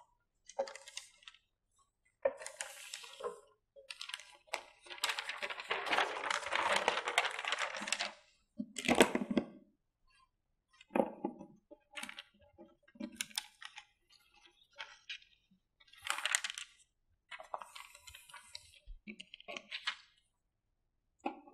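A large paper sheet rustling and crackling as it is handled and spread flat on a whiteboard, with scattered clicks and knocks against the board. The rustling is longest between about five and eight seconds in, followed by a heavier knock.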